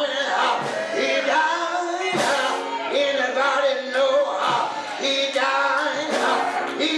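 Worship singing with instrumental accompaniment: sung voices over a steady held note, with sharp hits every second or two.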